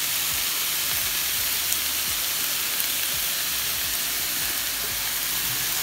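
Raw minced beef sizzling steadily as it fries in a non-stick frying pan.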